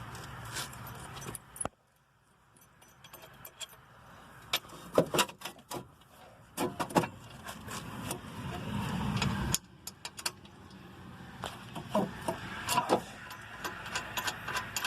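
Metal clinking and rattling of caliper mount bracket bolts and tools handled while the bolts are started by hand, scattered sharp clicks with a swelling rubbing scrape that cuts off abruptly past the middle.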